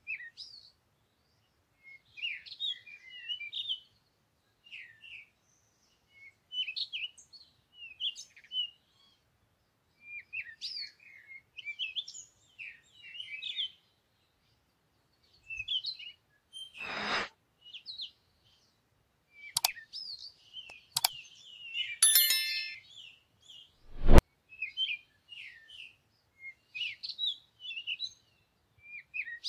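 Small birds chirping in short bursts every second or two. In the second half come several sharp clicks or knocks, the loudest a thump near the end.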